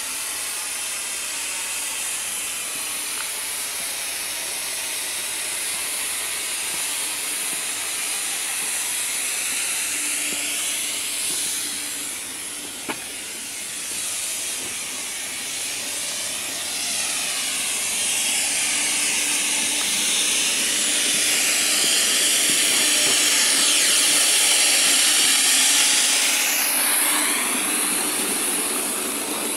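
Coal-fired Accucraft K28 live-steam model locomotive running with its train, a steady hiss of steam that grows louder as the train draws near and passes close, loudest shortly before the end. A single sharp click about halfway through.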